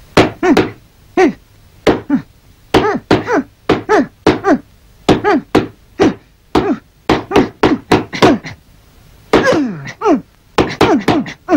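Cartoon boxing punch sound effects in quick, irregular succession, about two or three a second. Each is a sharp hit followed by a short falling tone.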